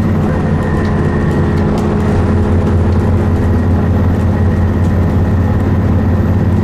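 Alexander Dennis Enviro400 Trident double-decker bus heard from inside the lower deck while under way: a steady low engine and driveline drone over road noise, with faint ticks and rattles on top.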